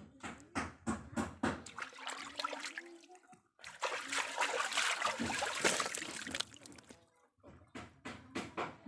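Water splashing and sloshing: a series of short splashes, then about three seconds of heavy continuous splashing, then short splashes again.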